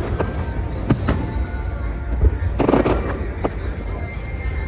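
Aerial fireworks bursting: several sharp bangs, and a burst of crackling a little past halfway, over a steady low rumble.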